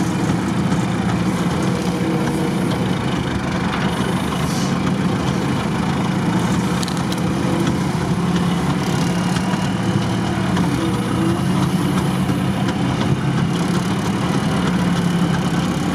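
UAZ off-roader's engine and drivetrain heard from inside the cab, running steadily at low speed while the vehicle crawls along a rutted dirt track.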